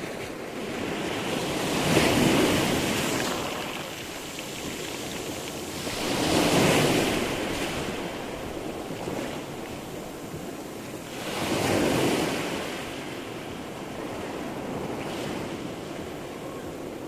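Sea surf rolling in. Three waves swell and break, about two, six and twelve seconds in, over a steady wash of water.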